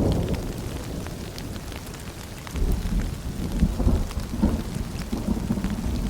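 Rain falling and dripping in a forest, with a low rolling rumble underneath that eases over the first couple of seconds and swells again about two and a half seconds in.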